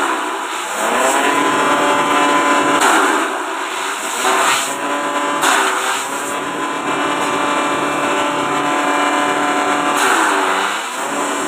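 Small grass chopper (forage chaff cutter) driven by a half-horsepower electric motor, running steadily while grass stalks are fed in. About five times its hum sags in pitch and recovers, with a burst of shredding noise, as each handful of grass loads the blades.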